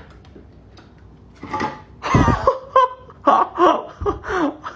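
A person laughing in a run of short bursts, starting about a second and a half in after a quiet stretch.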